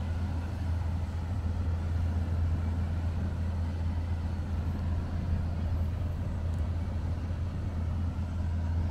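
Steady low rumble of wind buffeting the camera microphone while hanging aloft on a parasail, with a faint even hiss above it.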